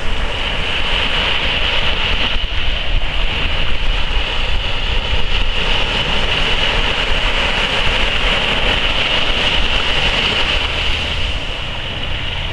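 Small waves breaking and washing up onto a sandy beach: a steady rushing surf with a low rumble underneath.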